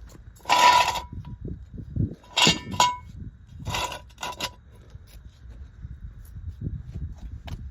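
Metal tools or parts clanking as they are handled and set down, in three loud clusters over the first four and a half seconds, each with a brief metallic ring, then fainter knocks.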